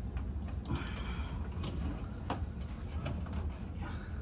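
A few light clicks and knocks of hand work in an electrical panel over a steady low hum.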